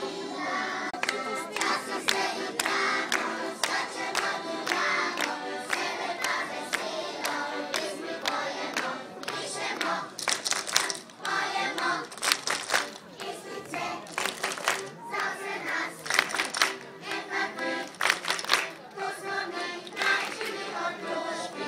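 Children's choir of kindergarten kids singing a song, with sharp hand claps repeated through much of it, thickest in the second half.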